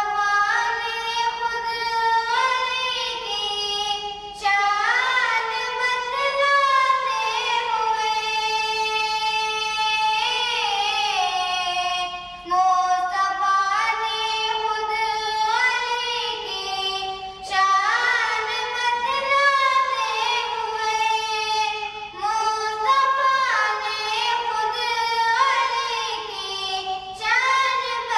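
A young girl singing a naat, a devotional Islamic song, solo into a microphone in long ornamented phrases with a wavering pitch.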